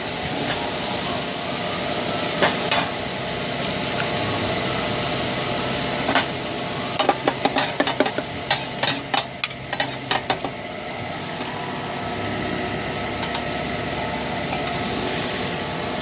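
Food frying with a steady sizzle, and a quick run of sharp clacks between about seven and ten seconds in.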